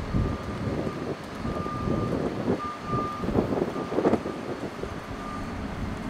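Backup alarm on construction equipment, beeping on and off at an even pace with a single high tone, over wind buffeting the microphone.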